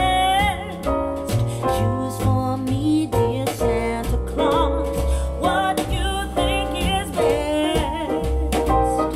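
A song with a singer and instrumental backing with strong bass notes, played back through a pair of Pioneer CS-501 three-way loudspeakers and picked up by a microphone in the room.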